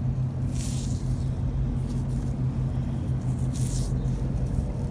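A steady low mechanical drone at one constant pitch, with two brief rustling hisses, about half a second in and again near the end.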